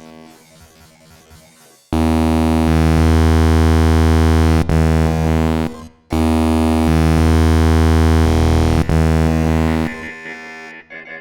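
Synthesized MIDI ringtone music. A soft passage gives way about two seconds in to a loud, dense chord held for about four seconds. The chord breaks off briefly, comes back for another four seconds, and then gives way to softer, choppy notes near the end.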